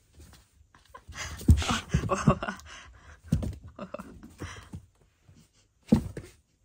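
Irregular bursts of rustling with soft thumps, separated by short silences.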